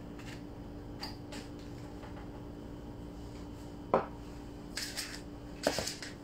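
Small metal pliers and other tools handled on a worktable: a few faint clicks, then a sharp clack about four seconds in as the pliers are set down, followed by several more handling knocks near the end. A faint steady hum runs underneath.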